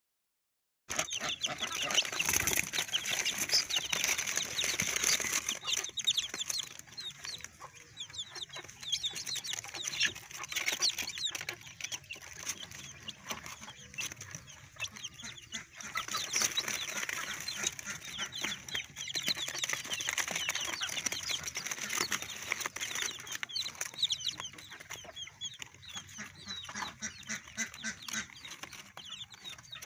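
A group of young chicks peeping steadily, many short, high, falling chirps overlapping without pause. The peeping starts about a second in.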